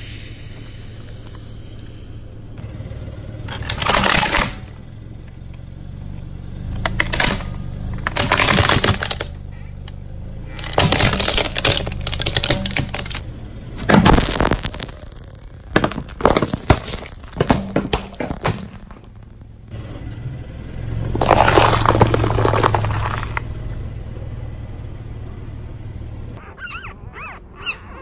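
A car tyre rolling over brittle objects and crushing them: repeated bursts of cracking and crunching over the low, steady hum of the car's engine.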